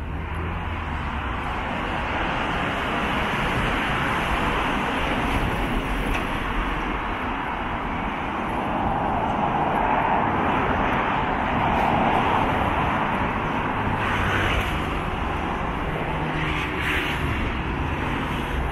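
Steady vehicle noise, swelling to a peak about halfway through and easing off again.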